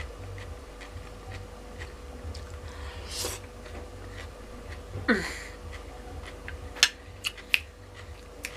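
A person eating fried chicken: quiet chewing and small clicks, with a breathy puff about three seconds in and a short hum falling in pitch about five seconds in.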